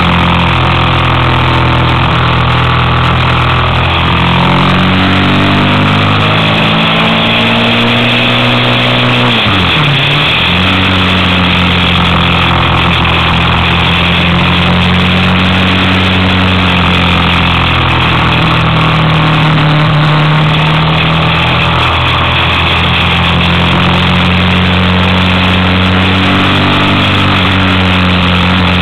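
Motorcycle engine running on a winding climb, its revs rising and falling through the bends, with wind rushing over the bike. About ten seconds in, the engine note drops sharply and then picks up again.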